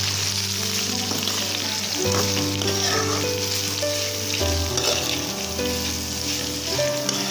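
Sliced bitter gourd sizzling as it fries in hot oil in a metal kadai, stirred with a metal spoon that scrapes and taps the pan.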